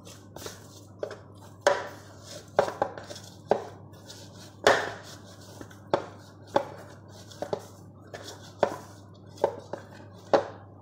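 Bread dough being kneaded by hand in a plastic tub: about a dozen irregular thuds and slaps as the dough is pushed and turned against the container.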